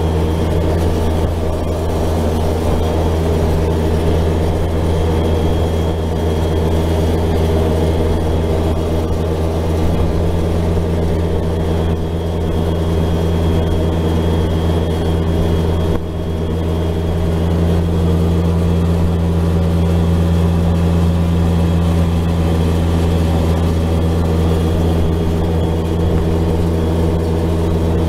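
Side-by-side ATV engine running steadily while cruising along a paved road, heard from on board as a loud, even drone, with a brief dip in level about sixteen seconds in.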